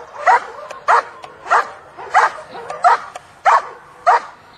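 A dog barking in a steady, even rhythm: about seven barks, a little under two a second.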